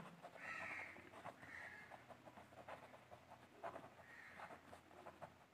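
Faint scratching of a pen writing on paper, in a few short strokes with small ticks between them.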